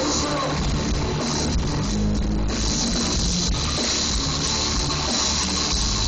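Hard rock band playing live at full volume, with drums and electric guitars, heard from within the audience.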